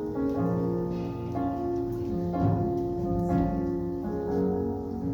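Keyboard in a piano voice playing soft held chords that change about once a second.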